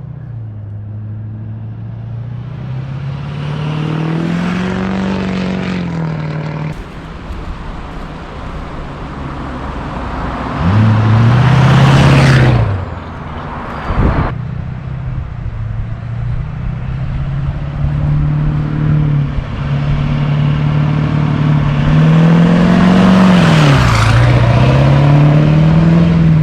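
LB7 Duramax 6.6-litre V8 turbodiesel, fitted with a 64mm turbo, running and building revs then easing off several times, with its loudest pulls about eleven seconds in and again near the end.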